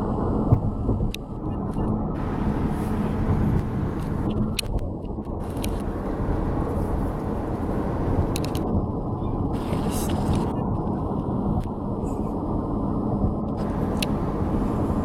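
Steady road and engine noise inside a moving car's cabin with the windows up: a low, even rumble with a faint steady hum.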